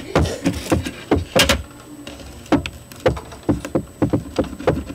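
Irregular knocks, clicks and taps of a glass plate and a piece of talc being handled on a plastic tray, the strongest about one and a half seconds in.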